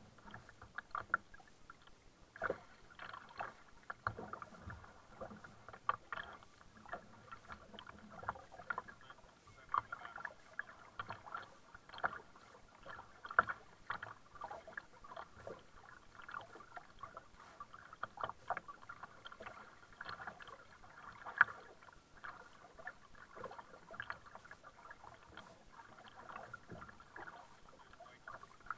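Double-bladed kayak paddle dipping into and pulling through the water, with irregular splashes and drips from the blades.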